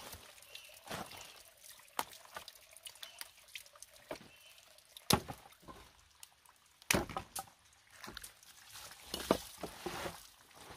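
Water trickling and dripping from a hose into a plastic basin, with a few sharp clicks and snaps as leafy vegetables are handled on a bamboo table.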